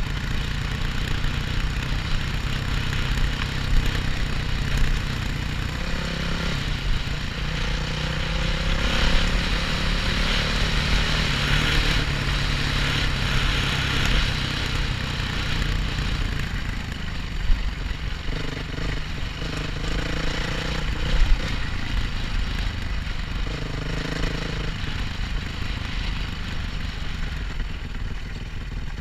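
Dirt bike engine running steadily under way across bumpy grassland, heard on board the bike.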